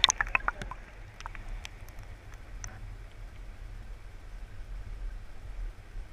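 Creek water heard from underwater through a GoPro's waterproof housing: a steady, muffled low rumble of flowing water. Over the first two seconds or so there is a scatter of sharp clicks and splashes, which then die away.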